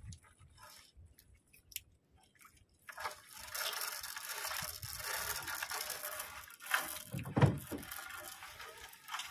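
Water splashing and dripping as a wet fishing net is hauled into a small boat. It starts about three seconds in after a quiet stretch of faint clicks, with a heavier knock about seven seconds in.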